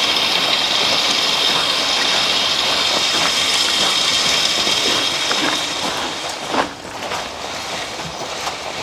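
Steel tines of a horse-drawn spring-tooth harrow dragging through freshly spread crusher-run gravel: a steady scraping, hissing rattle with a few clinks, growing quieter about six and a half seconds in as the team draws away.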